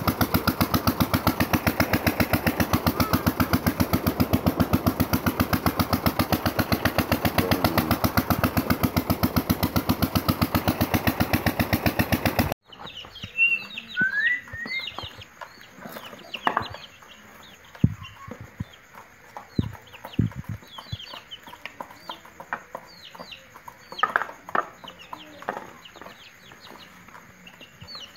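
An engine runs with a fast, even pulsing beat, then cuts off suddenly about twelve seconds in. After that, young chickens peep with short high calls while pecking at a plastic feeder, with scattered sharp taps.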